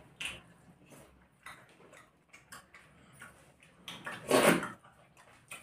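Eating sounds from people eating rice and fish curry by hand: scattered short mouth clicks and lip smacks while chewing, with one louder, longer mouth sound about four seconds in.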